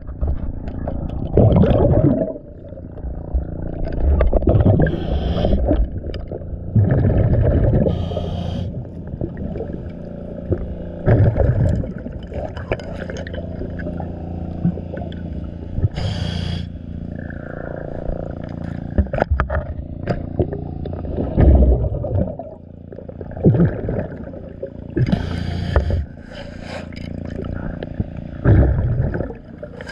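Underwater sound of a scuba diver breathing through a regulator: a gurgling rush of exhaust bubbles every few seconds, with hissing between, over a steady low drone.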